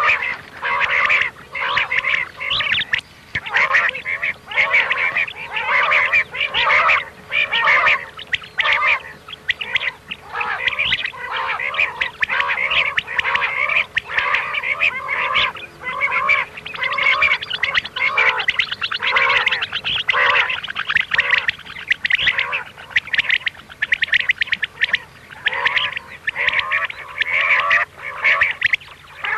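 Recorded quail (batair) calls: many birds calling over one another in quick, repeating bursts, with a faint steady hum beneath.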